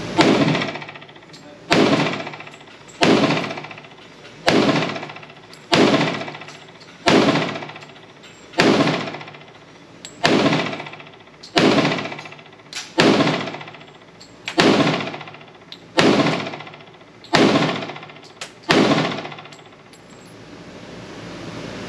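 FN FNX-45 Tactical .45 ACP pistol firing about fourteen shots at a steady pace, roughly one every second and a half, each shot followed by a fading echo.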